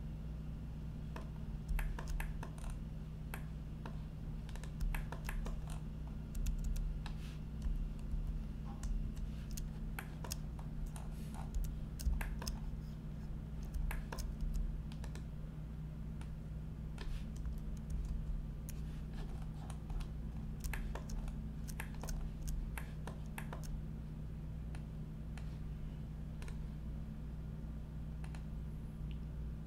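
Computer keyboard keys and mouse buttons clicking irregularly, a few presses every second or so, over a steady low electrical hum.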